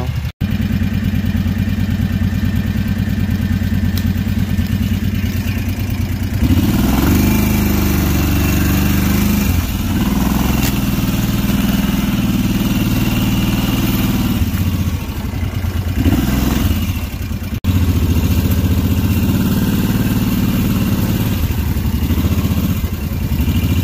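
Kawasaki Brute Force 750 ATV's V-twin engine running as the quad is ridden. It runs steadily for the first few seconds, then louder, with the engine note rising and falling with the throttle.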